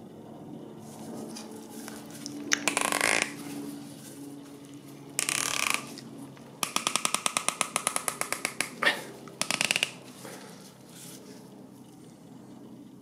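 A plastic oil filler cap with a brass barbed fitting being handled in gloved hands: two short scraping rustles, then a quick run of sharp clicks lasting about two seconds, and a last short scrape.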